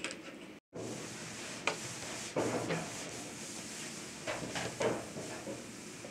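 A large kitchen knife cutting raw meat on a steel tray: rasping slicing strokes, with several short sharp scrapes and taps of the blade against the metal.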